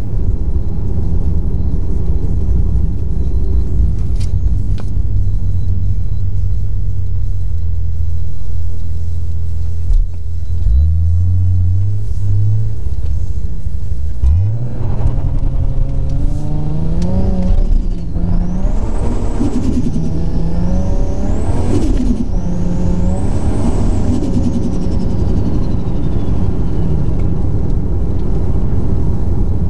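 Single-turbo 2JZ-GTE straight-six of a Toyota Supra heard from inside the cabin: a steady low drone, then the revs climb in steps through the gears about halfway through. A high turbo whistle rises and falls about three times with the pulls, then slides down as the throttle lifts near the end.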